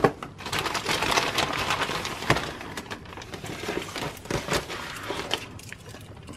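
Plastic mailer bag and packaging crinkling as items are pulled out of it, densest in the first half, then sparser rustles with a few small clicks.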